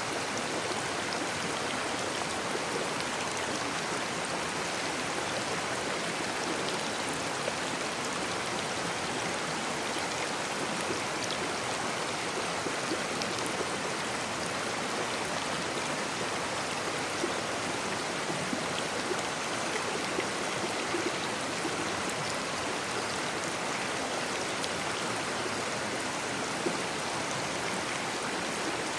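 Babbling brook: shallow water running and splashing over stones in a steady, even rush with small gurgles and splashes.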